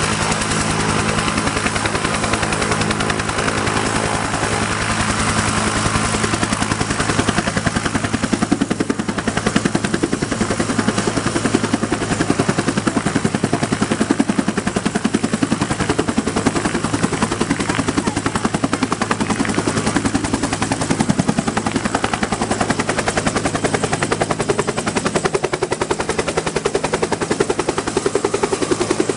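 Bell UH-1 Iroquois (Huey) helicopter running at flight rotor speed: the two-bladed main rotor's rapid, even blade slap over a steady turbine hum, as it takes off and lifts into the air in the second half.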